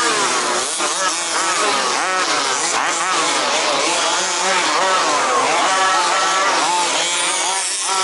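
Several 1/5-scale RC buggies' small two-stroke petrol engines racing, their buzzing pitch rising and falling as they rev up and back off, overlapping one another.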